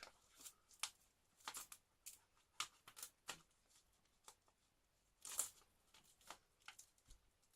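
Faint, irregular crackles and scratches of fingers picking at and tearing a Blu-ray case's plastic shrink-wrap, the loudest about five seconds in.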